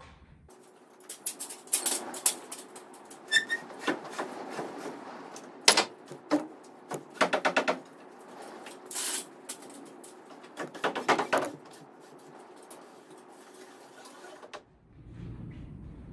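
Clattering of an aluminium ladder being handled and climbed and of a long timber board being pulled down from the roof rafters: a string of sharp knocks, with two short runs of quick rattling.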